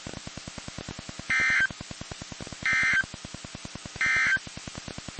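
NOAA Weather Radio EAS end-of-message data tones: three short bursts of digital tones, just over a second apart, that mark the end of a warning broadcast. A rapid low ticking buzz runs underneath.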